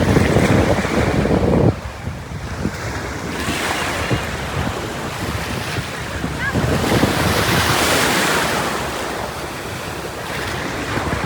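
Ocean surf with wind buffeting the microphone. The buffeting is heavy and stops suddenly a couple of seconds in, then a wave washes in with a hiss that swells to its loudest about two-thirds of the way through and slowly fades.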